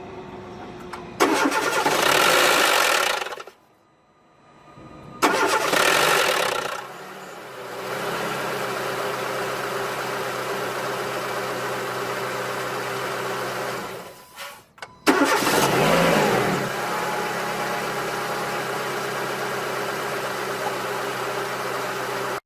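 Car engine started from cold three times. Each start brings a loud, strange noise lasting one to two seconds before the engine settles into a steady idle. This noise on cold start is the fault being shown.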